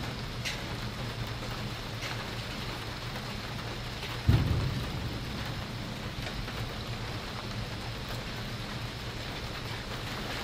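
Pouring rain falling steadily, with a sudden low clap of thunder about four seconds in that rumbles away over a second or two.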